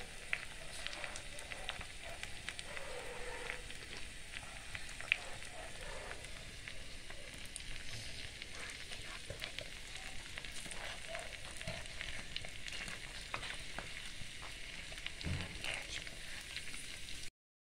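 Snake gourd finger chips deep-frying in sesame oil in a miniature clay pot: a steady faint sizzle with many small crackling pops and a few light taps of a small spoon. The sound cuts off abruptly near the end.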